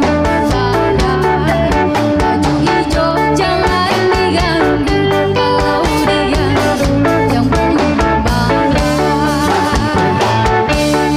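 Live band playing a song: a woman singing over electric guitar and a drum kit keeping a steady beat.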